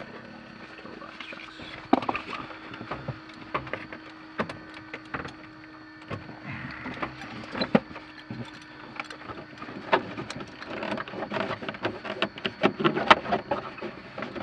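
Scattered clicks, knocks and rustles of handling inside the cockpit of a parked light aircraft with its engine shut down, getting busier about ten seconds in. A faint steady hum stops at about the same point.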